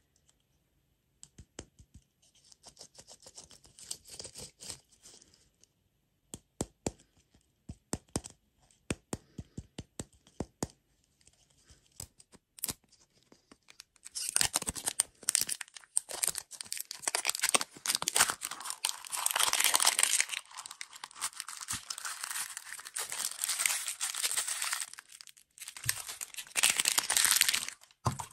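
Plastic wrapper of a ball-shaped lollipop crinkling and tearing as it is peeled off by hand. Scattered light clicks and soft rustling at first, then loud, continuous crinkling from about halfway through to near the end.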